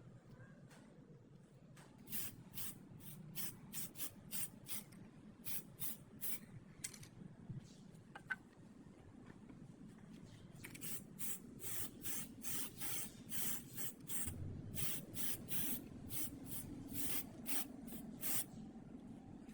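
Many short bursts of hissing spray: one run of quick puffs, then after a pause a longer, denser run.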